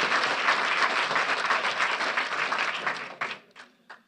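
Audience applauding: dense clapping that thins out about three seconds in to a few last scattered claps and stops.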